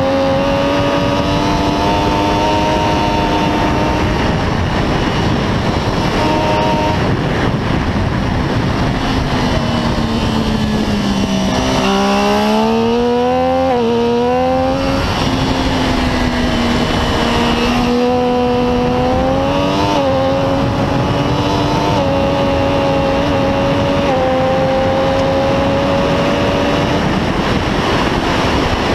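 Triumph Daytona 675R's inline three-cylinder engine at high revs on track, heard from a camera on the bike with heavy wind rush. The engine note falls about eight to twelve seconds in, then climbs again through several abrupt steps as the gears change.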